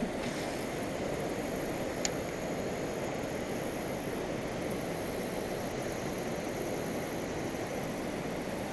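Steady rush of water pouring over a rock spillway, an even noise without change, with one faint tick about two seconds in.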